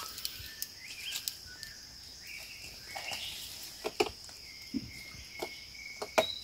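Outdoor ambience: a steady high insect buzz with birds calling. A handful of sharp clicks come in the second half.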